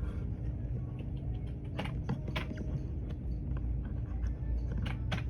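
A few scattered short clicks and taps over a steady low hum of room background.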